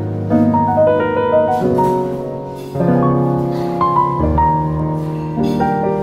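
Background piano music: a gentle melody over chords, notes struck every half second or so.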